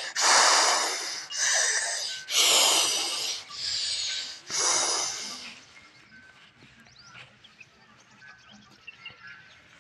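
A zebu cow blowing loud, noisy breaths close to the microphone: five snorting exhalations in the first five seconds or so, then quiet.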